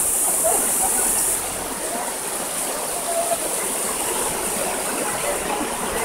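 Shallow river water rushing over a low weir of stones, a steady small-cascade hiss that eases a little about a second and a half in.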